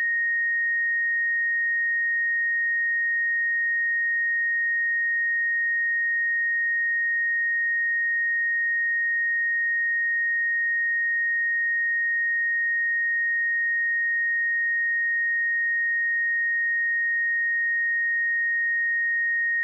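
A pure 1864 Hz sine-wave test tone, held steady at one pitch and level, used to check speakers or headphones.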